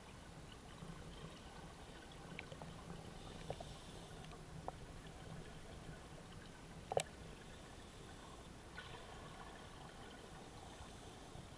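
Muffled underwater sound in a swimming pool, with a few small clicks and knocks from scuba gear being handled as a diver takes off and refits his buoyancy jacket and tank. One sharper knock comes about seven seconds in.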